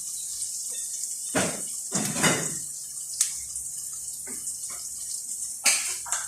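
Fava beans and chicken sizzling in a frying pan as a steady hiss, with a few sharp knocks and scrapes of a cooking utensil against the pan as the food is stirred.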